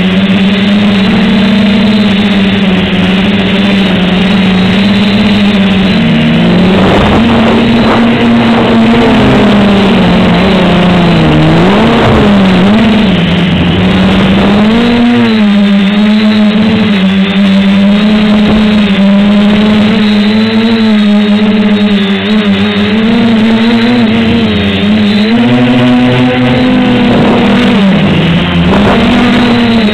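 SK450 quadcopter's four NTM 28-26 brushless motors and propellers buzzing loudly with a steady pitch. The pitch dips and rises several times as the throttle changes, most around the middle and near the end.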